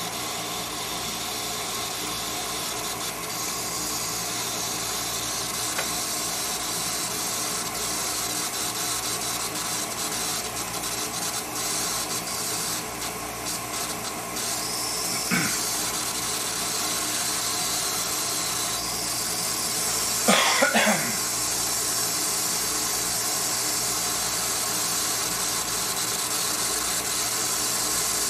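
Instant Pot electric pressure cooker venting steam from its release valve with a steady hiss, broken by a short louder burst about fifteen seconds in and a louder cluster of bursts around twenty seconds in.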